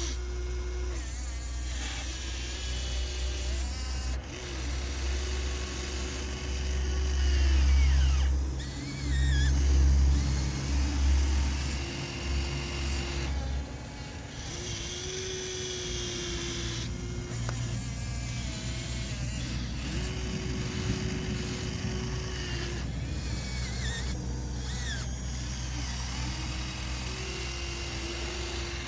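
Small electric gear motors of a Huina RC excavator whining as the model works, with motor tones starting, stopping and shifting pitch every few seconds as functions switch on and off. A louder low hum runs through the first half and is strongest about halfway through it.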